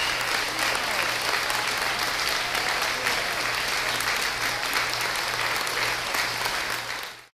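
Audience applauding steadily. The applause cuts off suddenly near the end.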